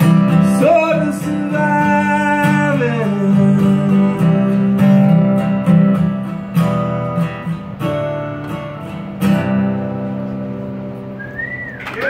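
Acoustic guitar strumming the closing chords of the song. The last chord is struck about nine seconds in and left ringing as it fades out.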